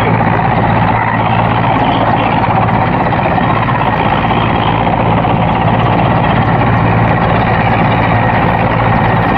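Mil Mi-17-type twin-turbine military helicopter hovering close by: the main rotor beats steadily over a loud, even turbine rush.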